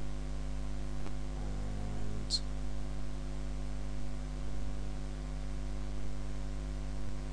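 Steady electrical mains hum picked up on the recording, with a faint click about a second in.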